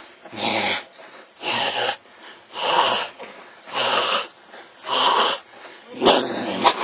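A person breathing heavily and raspily close to the microphone: six loud, wheezing breaths, about one a second.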